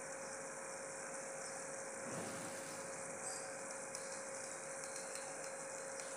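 Sugar syrup boiling in an iron kadhai on a gas burner: a steady bubbling hiss with a few faint ticks, over a steady low hum tone.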